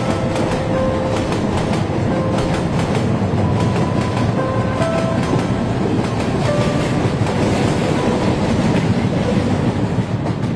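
Mumbai suburban local train running: the steady rumble and rattle of the moving carriage, with faint clicks from the wheels over the track.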